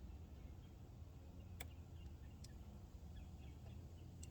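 Near silence: a low background rumble with a couple of faint clicks and a few faint high chirps.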